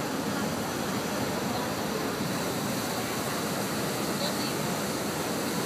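Steady rush of a Manly ferry's propeller wash churning the harbour water behind the stern as the ferry pulls away from the wharf.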